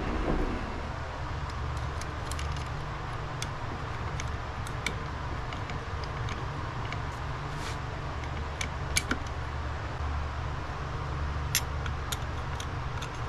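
Scattered light metallic clicks of clutch plates being fitted into a motorcycle clutch basket, over a steady low hum.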